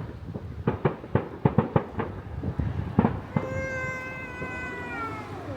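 Fireworks bursting in a quick string of sharp cracks and bangs, followed about three seconds in by a long, slightly falling wail lasting about two seconds.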